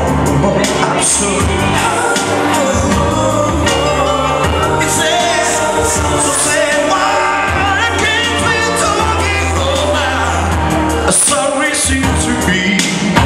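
A man sings a song live into a microphone over electronic keyboard accompaniment with a strong, steady bass, amplified through PA speakers.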